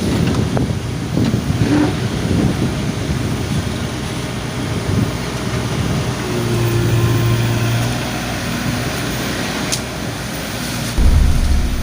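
Heavy diesel machinery running steadily, an excavator and a dump truck at work, with a few short knocks. A louder low rumble comes in near the end.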